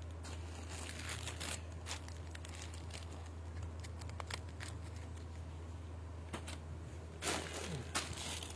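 Fabric garments being handled and shifted, giving scattered crinkling rustles, the loudest near the end. A steady low hum runs underneath.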